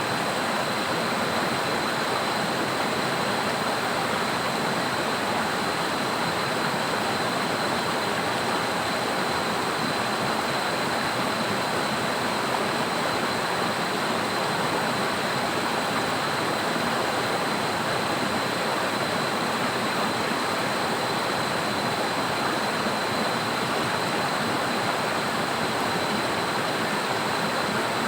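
Steady rushing water noise, with no breaks or single events, from heavy rain and a swollen river. A thin, steady high tone sits over it.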